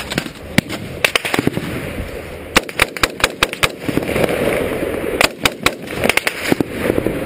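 Gunfire: many sharp shots at irregular intervals, some coming in quick clusters of several a second.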